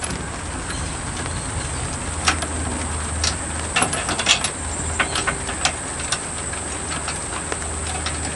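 Scattered metal clinks and clicks of trailer safety chains and rated D shackles being fastened at a tow hitch, over a steady high hiss.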